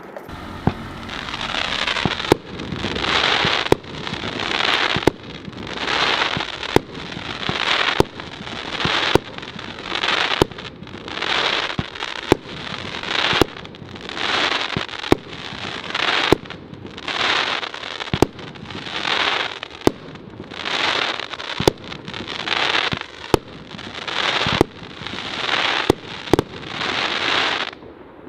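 E&R-Feuerwerk 'Hell Yeah' firework battery firing shot after shot, one about every second and a half. Each shot rises with a rushing, crackling tail and goes off with a sharp bang, followed by crackling star bursts.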